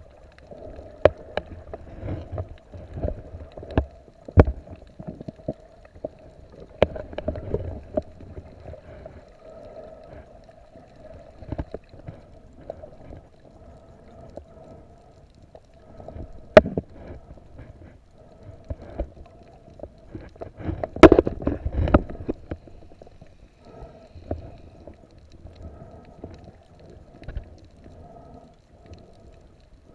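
Underwater sound picked up by an action camera in a waterproof housing: a steady muffled hum with scattered sharp clicks and knocks as a snorkeler swims and handles the camera, and a louder burst of rushing water and knocking about 21 seconds in.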